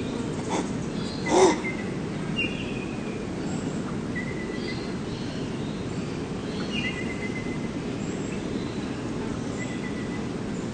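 An animal gives two short calls, about half a second and a second and a half in, over steady outdoor background noise. Faint short bird chirps follow every couple of seconds.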